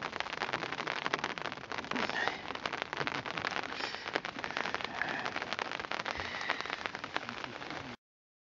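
Rain falling on tent fabric, a steady dense patter of many small drop hits close together; it cuts off suddenly near the end.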